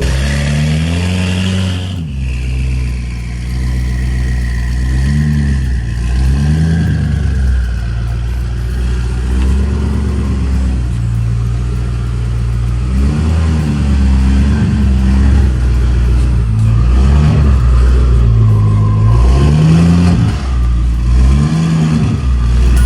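BMW M5 Competition's twin-turbo V8 running, its note rising and falling again and again as it is revved up and let back down.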